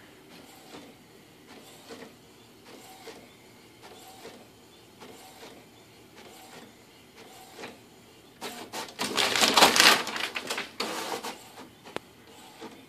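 Inkjet printer printing, its print head sweeping across about once a second in a faint, regular rhythm. Near the end comes a loud, noisy rustling burst lasting a couple of seconds.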